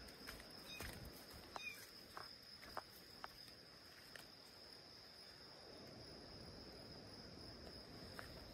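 Faint, steady, high-pitched insect trilling in the forest, with a few soft clicks in the first three seconds.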